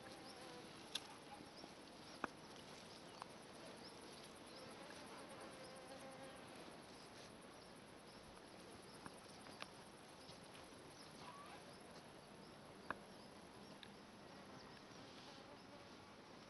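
Faint buzzing of insects around flowering dill, with a few short sharp clicks now and then.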